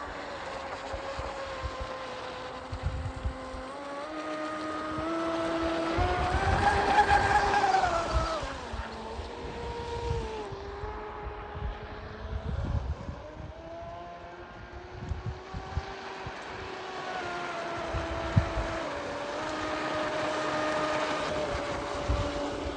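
Pro Boat Blackjack 42 RC speedboat's brushless electric motor whining at speed as the boat runs across the water, rising in pitch and loudness about six seconds in and dropping back a couple of seconds later. Wind buffets the microphone in low gusts.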